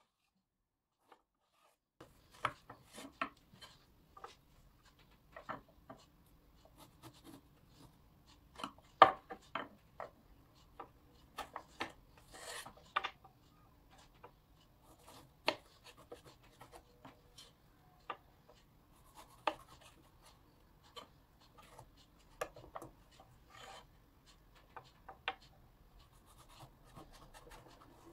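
Kitchen knife scoring a whole aubergine on a wooden cutting board, the blade crunching through the skin and tapping on the wooden spoon handles that stop each cut: irregular sharp taps and scrapes, starting about two seconds in.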